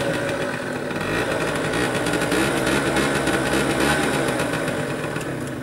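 Small motor scooter engine pulling up to a lowered crossing barrier and running at low revs as it waits, its pitch dipping and rising as the throttle eases off.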